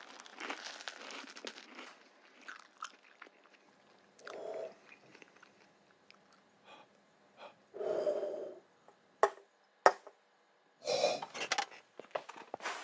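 A man biting and chewing a sandwich, with rustling at the start and a few sharp clicks. Short breathy mouth sounds come at intervals, and near the end he huffs as the chopped chili hidden in the sandwich burns his mouth.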